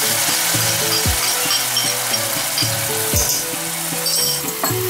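Finely chopped onion frying in hot oil in a pressure cooker, a steady sizzling hiss.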